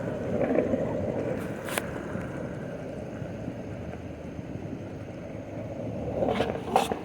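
Fireworks going off: sharp pops, one about two seconds in and two close together near the end, the last the loudest, over a steady low rumble.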